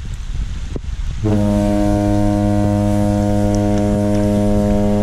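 Ship's horn sounding one long, steady, deep blast, starting about a second in.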